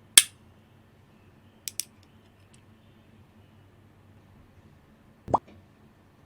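Aliaz Silent 60g mechanical keyboard switches being opened for lubing: a sharp plastic click right at the start, a quick double click about a second and a half later, and a duller knock near the end.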